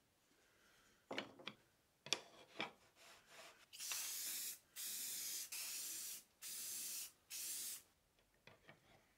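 Aerosol can of clear finish spraying in five short hissing bursts, each well under a second, after a few knocks and clatters as it is handled.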